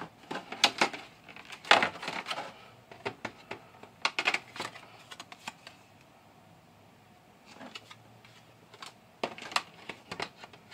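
Clear plastic blister tray of a Pokémon card collection box being handled and pulled apart: bursts of plastic clicks and crackles, with a quiet stretch of about two seconds in the middle.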